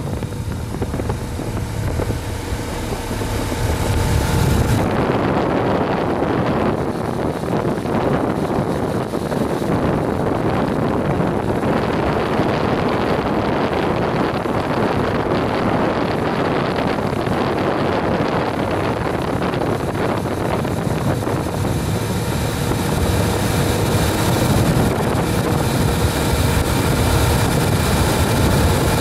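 Steady vehicle engine noise with wind buffeting the microphone, its character shifting about five seconds in.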